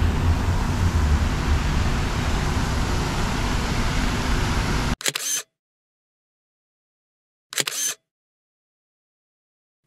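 Outdoor street noise with a steady low rumble that cuts off suddenly about five seconds in, followed by camera shutter clicks over silence: one just after the cut, another about two and a half seconds later, and a third starting at the very end.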